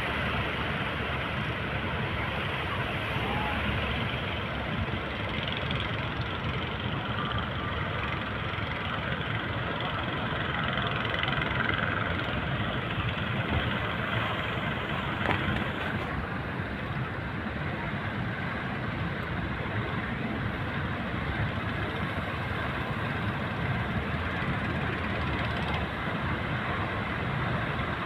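A boat's engine running steadily at sea, mixed with a constant rushing noise.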